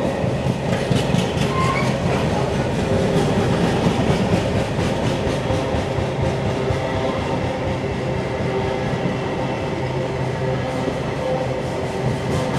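Long train of empty container flat wagons rolling past, with repeated clicks of the wheels over the rail joints. Underneath, a steady hum from the Class 66 diesel locomotive's two-stroke V12 engine as it pulls the train away.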